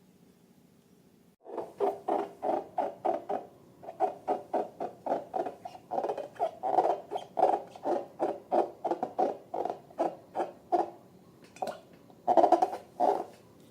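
Long rubber balloons squeaking as they are rubbed and squeezed: a quick run of short squeaks, about four a second, with a pause near the end before a few more.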